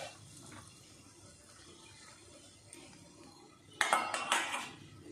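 Stainless-steel kitchenware clinking: a brief knock as drained rice is tipped from a steel strainer onto a steel plate, then a short clatter of a utensil against the plate about four seconds in, with near quiet between.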